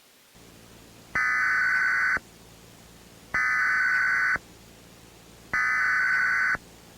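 Emergency Alert System SAME data bursts: three harsh, buzzy digital bursts of about a second each, roughly two seconds apart. This is the coded header that opens an alert. A faint steady hum runs underneath.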